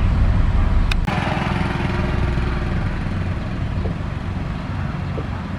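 Heavy diesel construction-machine engine running steadily with a deep rumble. A sharp click comes about a second in, after which the low rumble shifts and slowly eases off.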